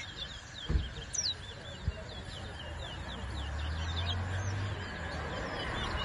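Caged towa-towa seed finches singing in a song-count race: a steady run of short, quick whistled chirps. Two sharp low knocks about a second in.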